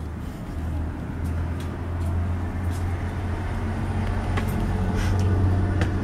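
Steady low engine hum, slowly growing louder, with a few light clicks.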